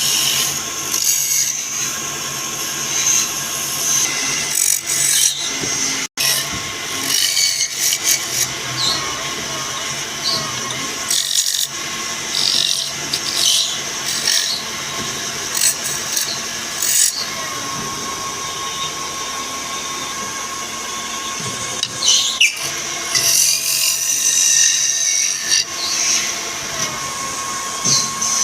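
Electric woodworking machine running steadily with a steady hum, while a tool cuts and scrapes at wood in uneven strokes. The sound drops out for an instant about six seconds in.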